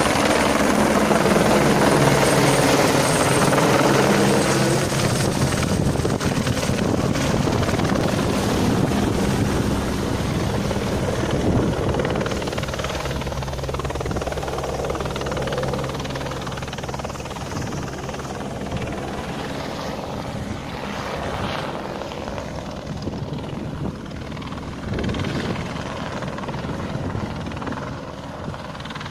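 Light helicopter passing close overhead, then flying away, its rotor beating steadily and slowly fading.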